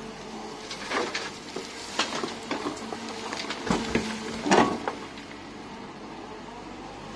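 Kobelco EC220E excavator at work: a string of sharp clattering knocks and crackles from about one to five seconds in, loudest near the end of them, like dirt and stones tumbling from the bucket, over a steady engine hum.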